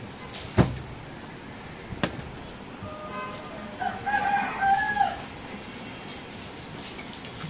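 A rooster crowing, several held notes from about three to five seconds in. A sharp knock comes about half a second in, the loudest sound here, with a lighter one near two seconds.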